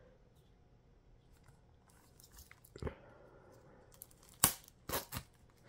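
Plastic shrink wrap on a 4K Blu-ray case crinkling and snapping as it is handled and worked open at the spine. A few faint ticks give way to one sharp crackle about three seconds in, then three loud sharp snaps near the end.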